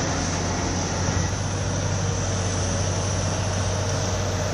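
Fuchs MHL 464 material handler running steadily, its diesel engine and hydraulics giving a constant low hum under an even mechanical noise.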